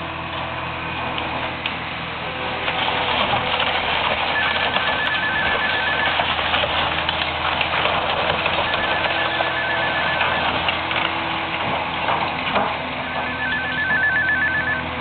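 A phone ringing three times, each ring a rapid electronic trill lasting under two seconds. Underneath runs the steady noise and crunching of machinery demolishing a house.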